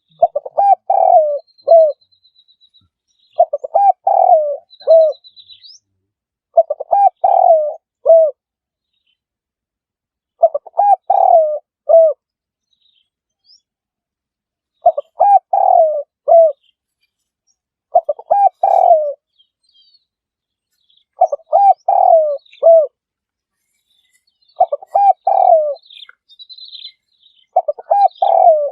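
Spotted dove cooing its repeated "coo-a-roooo" phrase, each phrase a short run of low, falling coos, given nine times at intervals of about three to four seconds. Faint high chirps from another small bird sound now and then behind it.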